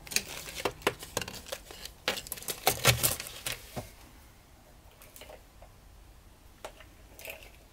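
A clear plastic bag of hair elastics crinkling and rustling as it is handled over a drawer, with a quick run of clicks and rustles for the first few seconds, loudest about three seconds in, then only a few faint clicks.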